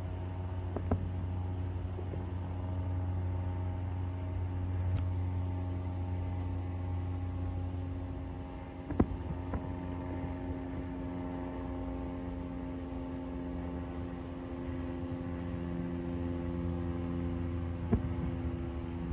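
A steady low hum of running machinery, holding several fixed tones. Over it, three sharp firework bangs about nine seconds apart: one about a second in, one midway followed by two smaller pops, and one near the end.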